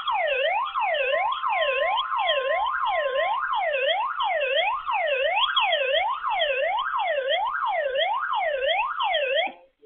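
Electronic emergency-alert attention tone, a siren-like wail sweeping down and up about three times every two seconds, with a steady beep under it for about two seconds near the start. It cuts off suddenly near the end.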